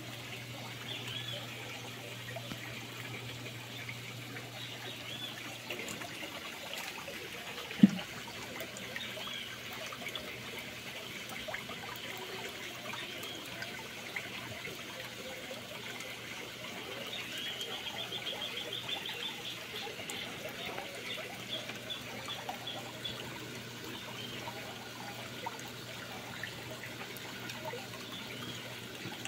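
Water trickling steadily, with high chirping notes now and then and a quick run of them a little past halfway. A single sharp knock comes about eight seconds in.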